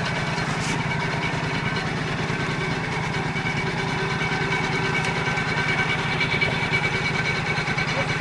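Small garden tractor engine running steadily at constant speed, with a faint steady whine over the engine note.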